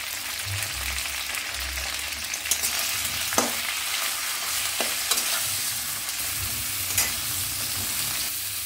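Whole brinjals and flat beans sizzling in hot mustard oil in an aluminium kadai as they are stir-fried with salt and turmeric. A metal spatula turns them, scraping and clicking against the pan a few times.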